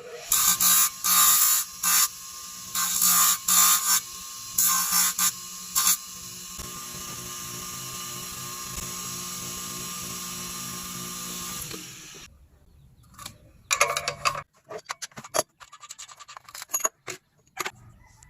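Small electric power tool running steadily, with several loud bursts of a second or so in the first six seconds as it works against the piece, then switched off about 12 seconds in. After it stops, a scatter of short scrapes and knocks.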